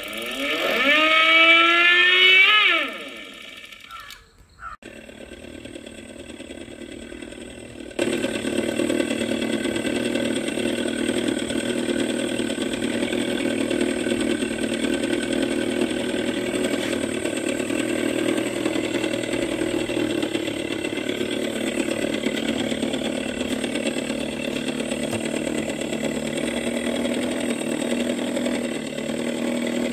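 Sound effect of the Ola S1 electric scooter's Vintage mood, played through the scooter's speaker. A stack of rising tones, like an engine revving up, fills the first three seconds. After a lull, from about eight seconds in, a steady imitation of an idling engine runs on.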